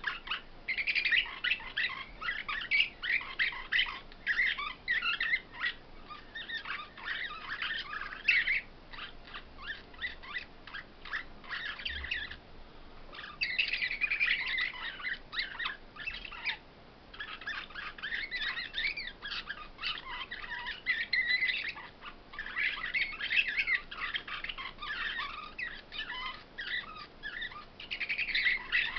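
Caged finches singing: long bouts of fast, twittering song broken by short pauses, with scattered single chirps in between.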